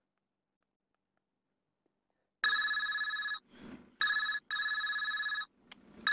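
Mobile phone ringing with an electronic ringtone, starting about two and a half seconds in: repeated bursts of steady high tones, each half a second to a second long with short gaps between.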